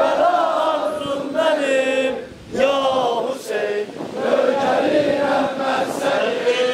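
A crowd of men chanting a mourning lament together in unison for Ashura, in long held lines with a short pause for breath a little over two seconds in.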